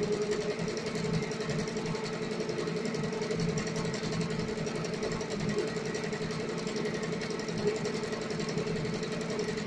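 Multi-needle embroidery machine stitching: a fast, steady rhythm of needle strokes over the even hum of the machine.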